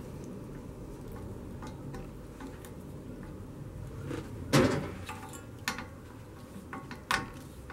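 Light clicks and scrapes of a worm-drive Jubilee hose clip being screwed tight on a rubber gas hose at a gas bottle's regulator. A louder knock comes about halfway through and a sharper one near the end, over a steady low hum.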